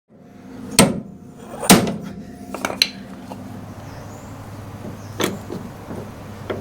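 Hammer blows on the steel frame rail of a 1966 Ford Ranchero, struck to straighten a curb-damaged section: two hard strikes about a second apart, a couple of lighter knocks, then another strike about five seconds in and a lighter one near the end, over a steady low hum.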